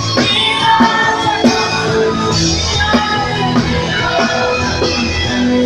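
Live gospel praise music: a women's choir singing through microphones over band accompaniment, with a steady beat.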